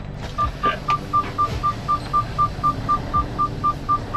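Semi truck's dashboard warning chime beeping rapidly, about four short, even beeps a second at one steady pitch, over the low rumble of the idling diesel engine.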